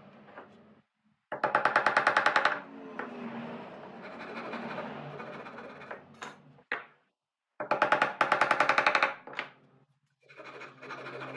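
Power tool running in two loud bursts of rapid hammering, each about a second long and some six seconds apart, with a quieter hum between them.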